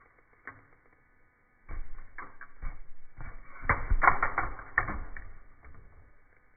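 Plastic fidget toys clicking and clattering as they fall, heard in slowed-down slow-motion playback, so the clatter sounds low and muffled. One click comes about half a second in, then a dense run of clatter from near two seconds to past five, loudest around the middle.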